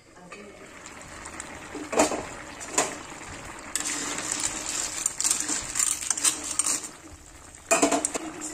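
River snails in curry boiling hard in a metal kadai, a bubbling, crackling hiss that is loudest in the middle. Sharp metallic clinks on the pan come about two seconds in and again near the end.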